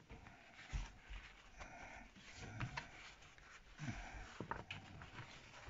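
Paper towels rustling and crinkling as hands press and rub them over freshly cut raw potato chips on a wooden chopping board to blot off the water, with a few soft low thumps.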